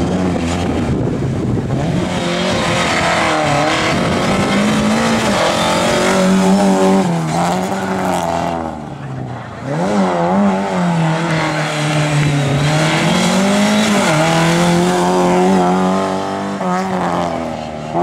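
Rally car engine running hard at high revs, its pitch repeatedly dropping and climbing again as it lifts off and accelerates. It quietens briefly about eight to nine seconds in, then picks up again.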